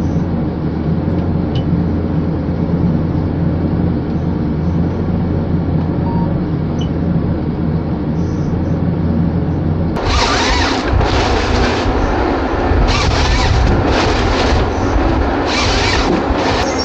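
Forestry harvester's diesel engine running steadily. About ten seconds in, the sound changes abruptly to a run of loud noisy bursts about a second long each, over a rougher engine rumble.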